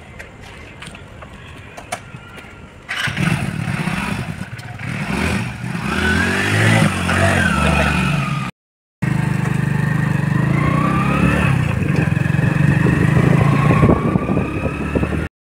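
Motorcycle engine catching about three seconds in and revving up, then running under load as the bike pulls away. Its pitch rises several times as it accelerates.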